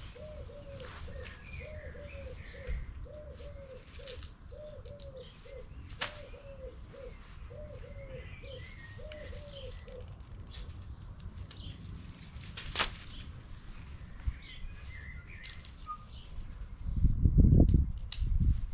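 A pigeon cooing in a regularly repeated phrase for about the first ten seconds, with a few small bird chirps and scattered light clicks and taps. Near the end comes a loud low rumble, the loudest sound here.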